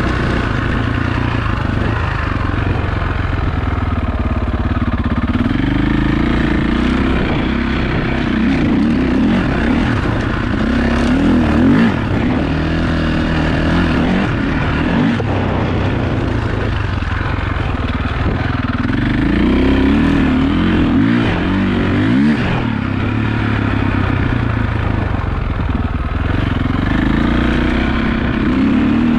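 KTM 525 EXC dirt bike's single-cylinder four-stroke engine under way, its revs rising and falling again and again as the throttle is worked.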